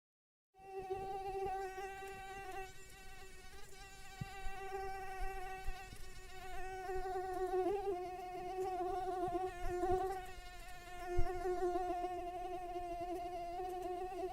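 Mosquito whine: a steady, high buzzing tone that starts about half a second in, wavering slightly in pitch and rising and falling a little in loudness. A soft low knock sounds about eleven seconds in.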